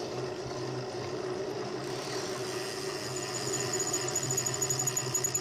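The engine of a white Ford pickup truck running as it drives toward the bicycle, growing louder and more uneven near the end. From about three seconds in, a fast, steady ticking is heard, like a bicycle freewheel coasting.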